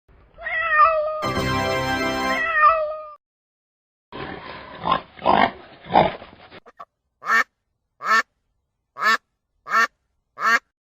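A domestic cat's long meow with a bending pitch, then a stretch of harsh, noisy animal calls, then a run of five short calls about two-thirds of a second apart.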